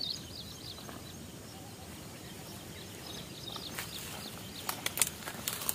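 A small bird chirping a quick run of high notes at the start and again about three seconds in. From about four seconds, footsteps crunching on dry grass and twigs, a few sharp crackles loudest near the end.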